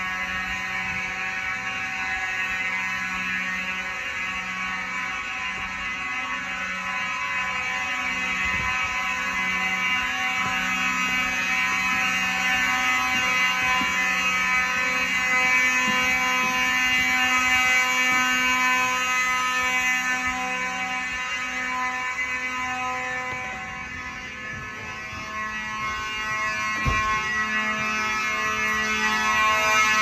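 Simplex 2901-9838 fire alarm horns sounding steadily together in a building-wide alarm test. The sound dips for a moment about three-quarters of the way through, then grows louder again.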